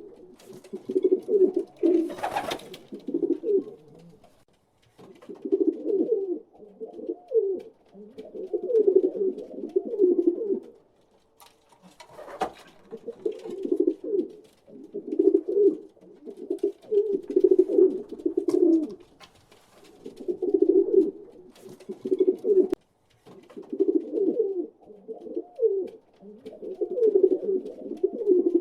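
Pigeons cooing in repeated low phrases of a second or two each, with short pauses between, and a few brief clicks.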